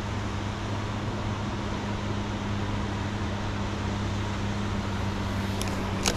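Steady rushing noise of fast river current with a low, even hum underneath; near the end two sharp clicks, the second louder.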